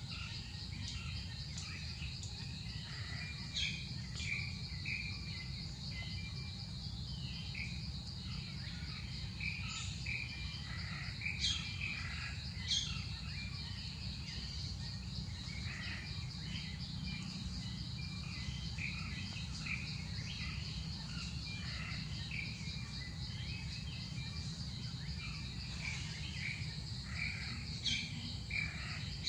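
Forest ambience: a steady high insect trill, with scattered bird chirps and a few sharper calls, over a low background rumble.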